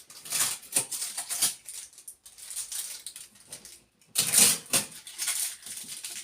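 Irregular rustling, crackling and clicking of packaging being handled and pulled off a new refrigerator, with a louder stretch a little past the middle.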